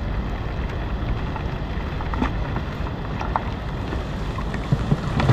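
Steady rain with wind rumbling on the microphone, and a few faint knocks scattered through it.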